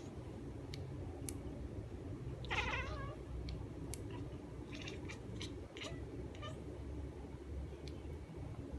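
Domestic cat giving one loud, falling meow about two and a half seconds in, with several short chirps and clicks around it.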